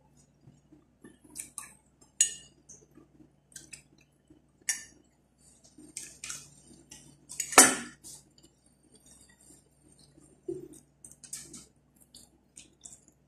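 A metal spoon scraping and tapping on a plate while eating rice, in scattered irregular clicks, the loudest about seven and a half seconds in.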